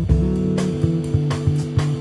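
Background music: guitar over a bass line, with a regular drum beat.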